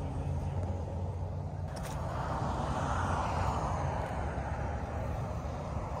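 A vehicle passing on a nearby road: its noise swells about two seconds in and fades away over the next few seconds, over a steady low traffic hum.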